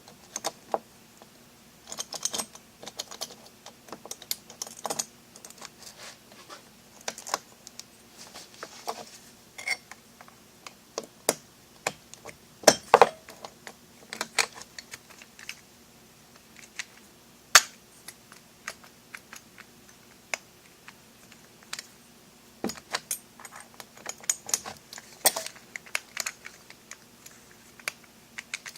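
Irregular sharp metallic clicks and clinks of a Medeco lock cylinder and its cover plate being worked into a modified knob lock body, with the loudest knocks near the middle.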